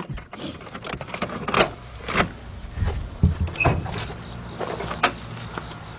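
Hood of a 1992 Ford Ranger pickup being released and opened: a series of separate clicks and clunks from the latch and hood panel.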